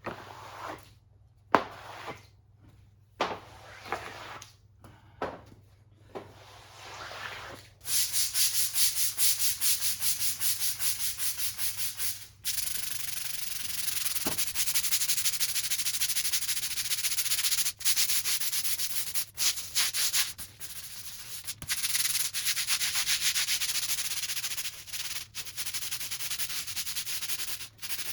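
A stiff brush scrubbing a stubborn stain with degreaser or soap: a few separate strokes at first, then rapid, rhythmic back-and-forth scrubbing from about eight seconds in.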